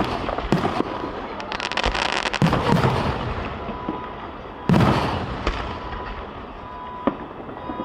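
Aerial fireworks going off: a dense run of crackling pops, then two deep booms about two and a half and five seconds in, with scattered pops between.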